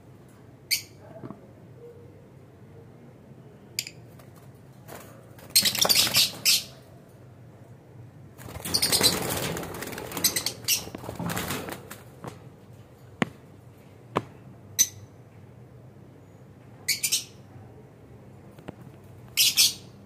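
Caged lovebirds giving short, high-pitched chirps in scattered bursts, with a quick cluster of calls about six seconds in and more near the end. In the middle, a few seconds of wing flapping and rustling, then a couple of sharp clicks.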